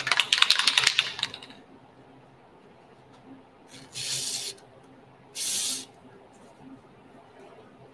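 Rapid scrubbing strokes on the starter cart's metal panel for about the first second and a half, then two short hisses of an aerosol spray can a little over a second apart, as solvent is sprayed on to loosen the paint.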